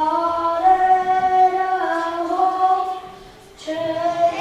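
A female voice singing a slow melody in long held notes, pausing briefly about three seconds in before starting the next phrase.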